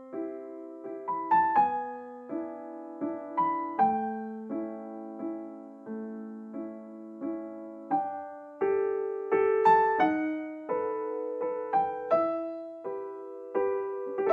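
Gentle background piano music: single notes and chords struck in turn, each ringing and fading.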